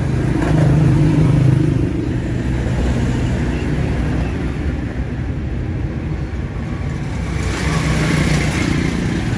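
Motor vehicle engine running with a low hum, louder in the first two seconds and again near the end.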